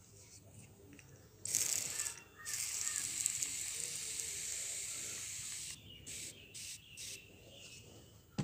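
Hand-pump pressure sprayer spraying water, hissing: a short burst about a second and a half in, a steady spray of about three seconds, then a few short puffs near the end.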